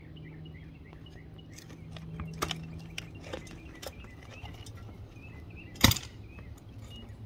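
A few sharp knocks from a manual post-hole digger being jabbed into the soil, the loudest about six seconds in.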